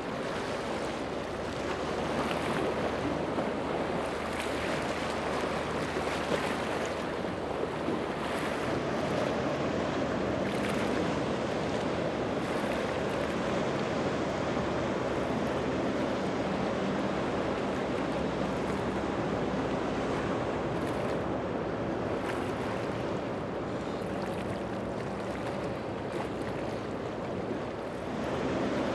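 Outboard boat engines running at speed, a steady low drone under the rush of spray, waves and wind.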